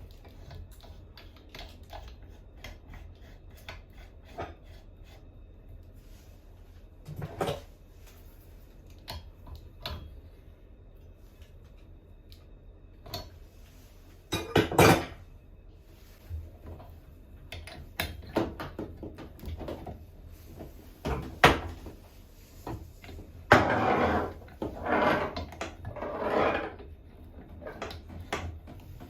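Intermittent clinks and knocks of tools and metal faucet parts being handled while a bathroom faucet is replaced, with a few longer, louder noisy bursts near the end.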